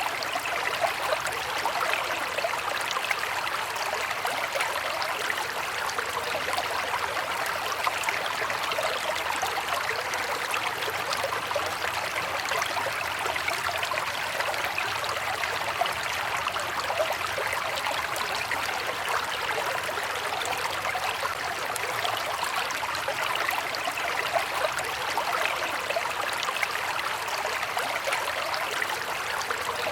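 River water flowing steadily, a continuous rushing babble with fine splashing.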